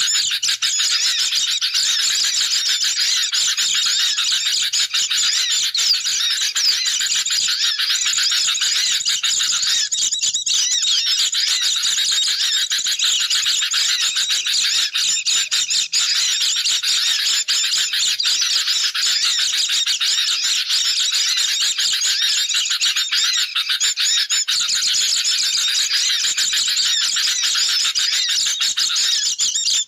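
Dense chorus of sooty-headed bulbuls and white-eyes calling noisily together, many fast overlapping high chirps and twitters without a break: a bird-lure (pikat) recording of agitated 'ribut' calls used to draw these birds in.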